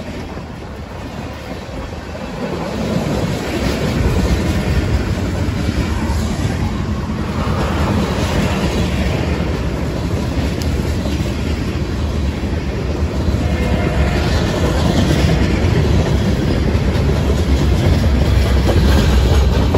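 Freight cars of a mixed freight train rolling past, steel wheels running on the rails in a steady rumble that grows louder about three seconds in.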